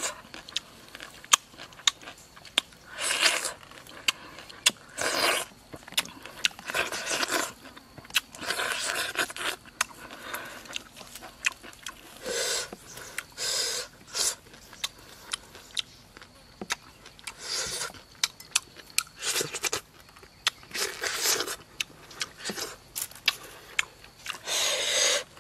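A person eating soft, juicy fruit close to the microphone: repeated wet mouth noises from biting, chewing and sucking the flesh, with short clicks in between.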